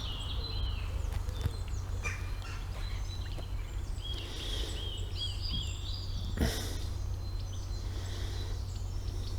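Small birds chirping and calling, with a quick run of repeated chirps in the middle, over a steady low rumble.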